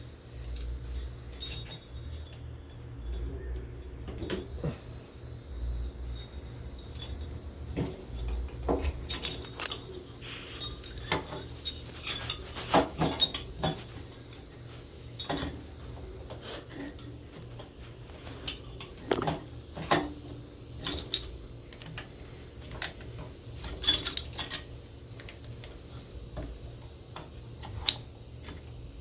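Irregular light metallic clinks and clicks of engine parts being handled as the cylinder and timing chain go back onto a Honda FourTrax 300's top end, over a low steady hum.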